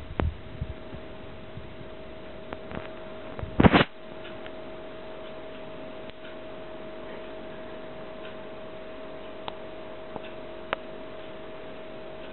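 Steady hum with a few faint clicks and one loud rustling bump a little under four seconds in, typical of handling noise as a small bird is held in the hand; the bird does not sing.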